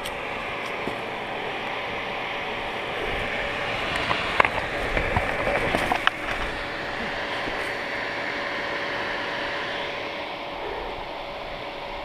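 KTM dirt bike engine running, louder for a few seconds around the middle as the bike is ridden off through loose dirt, with a couple of sharp knocks, then settling back to a steadier note.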